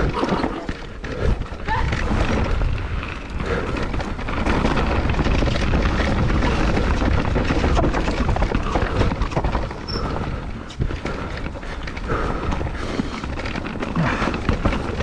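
Mountain bike ridden over a rough trail: a steady rumble of wind on the microphone with a constant clatter of knocks and rattles from the tyres and bike over the bumps.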